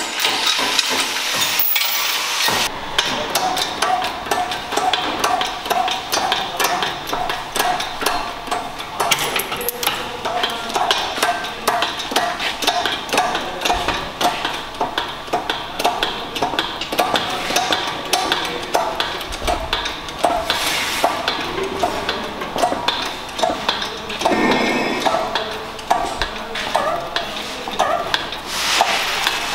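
VW Polo's engine idling in neutral to warm up, heard from the open engine bay as a steady hiss with dense, irregular clicking.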